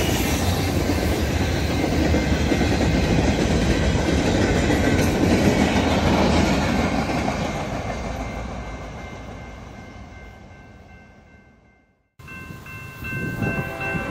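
Freight train rolling past on the rails, loud at first, then fading away to silence about twelve seconds in. Near the end a diesel locomotive's horn starts sounding, a steady chord.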